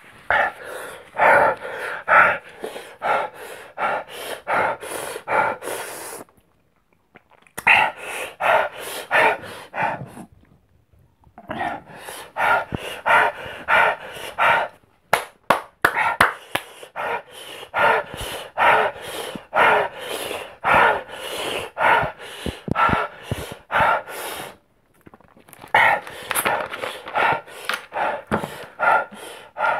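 A man panting hard in quick, regular breaths, about two a second, with a few short pauses, from the burn of an extremely hot chili chip.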